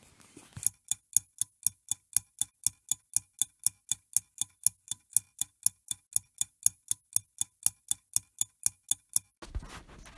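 Ticking clock sound effect: sharp, even ticks at about four a second, starting under a second in and stopping near the end.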